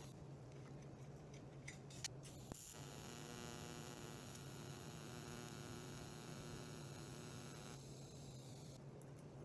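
Faint, steady electrical hum around a TIG welding arc on steel, with a few light clicks about two seconds in.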